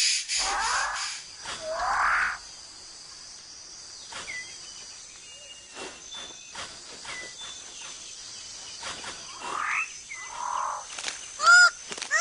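Rainforest birds calling. Two loud rising calls come in the first two seconds over a fast pulsing buzz that fades out, then scattered quieter chirps and clicks, then a quick run of loud repeated calls near the end.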